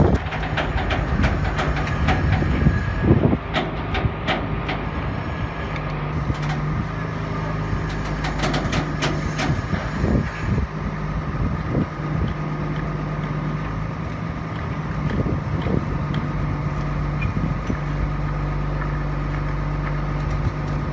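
Boom truck engine running steadily while its crane lifts a pallet of tiles, with a scatter of sharp knocks and clatter in the first half.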